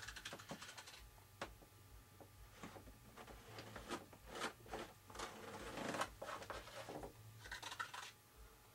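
Faint, irregular scraping and rustling as epoxy is worked over fiber tape on a model wing with a small stick, with a low steady hum underneath.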